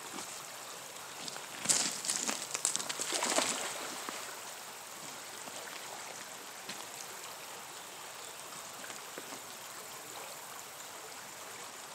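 A fishing magnet on its rope is thrown into a shallow creek, splashing into the water about two seconds in, followed by a short rush of water and rope noise. After that only the faint steady sound of the creek water remains.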